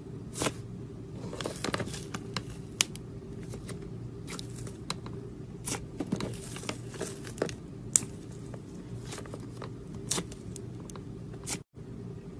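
Slime being squeezed, poked and stretched by hand, giving irregular sticky clicks and crackles over a steady low hum, with a brief dropout near the end.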